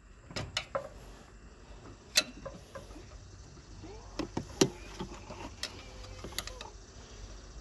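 Irregular mechanical clicks and knocks, a few at a time, with two sharper knocks about two seconds and four and a half seconds in.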